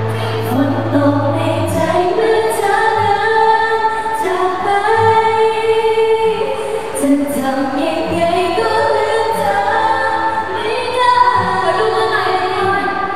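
Female pop vocalists singing live through handheld microphones over backing music, several voices sustaining and gliding through long notes together.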